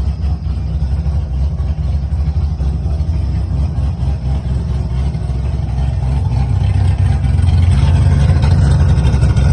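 Car engine idling steadily just after a first start on newly installed braided PTFE fuel lines, fuel pressure holding. It gets a little louder about three-quarters of the way through.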